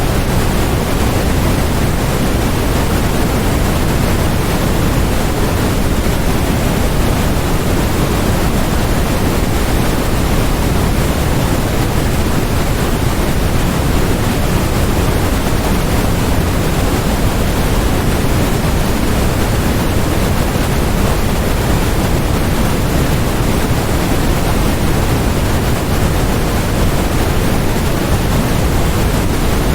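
Steady, unbroken synthetic noise of the sort sold as white noise for focus, with more weight in the low end than the high, so it sounds closer to pink noise; it never changes in level or character.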